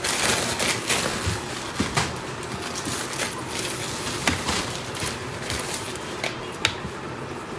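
Clear plastic mailer bag and small product boxes being handled: a steady crinkling rustle with scattered clicks and taps, busiest in the first second or so.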